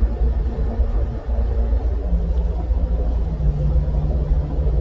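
Road noise of a moving car heard from inside the cabin: a steady low engine and tyre rumble. A steady hum comes in about two seconds in and drops slightly in pitch a second later.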